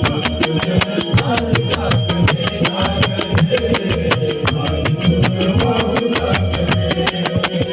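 Instrumental devotional song music: a keyboard melody over a fast, steady percussion beat with jingling tambourine.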